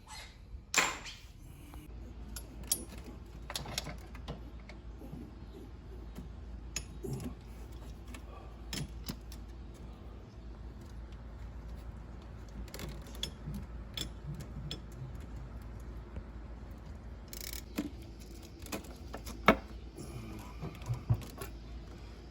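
Scattered metallic clinks, taps and knocks of hand tools and engine parts being handled, with a sharper knock about a second in and another near the end.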